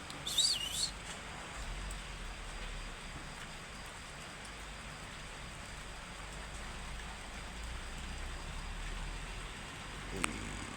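Steady rain falling, with a bird giving a short high call near the start and a brief click near the end.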